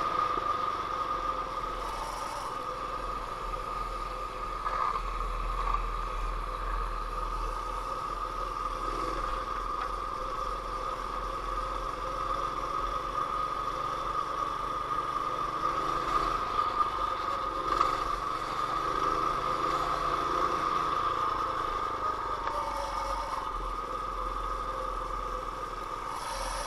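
Sears Roper mini bike's small engine running steadily as the bike rides along, holding an even pitch, with wind rumble on the microphone beneath it.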